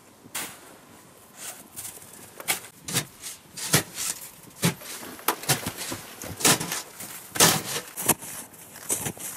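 Snow being shovelled and trodden: irregular sharp crunches and scrapes in deep snow, about one or two a second.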